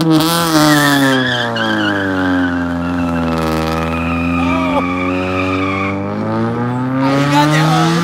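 Car doing a burnout: the engine revs hard while the tires squeal. The engine pitch sags about halfway through, then climbs again near the end.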